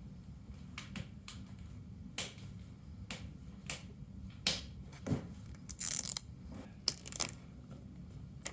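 Adhesive vinyl fork graphics being handled, peeled and pressed on: scattered clicks and short crinkling rustles of the sticker and its backing, with a couple of louder crinkles past the middle.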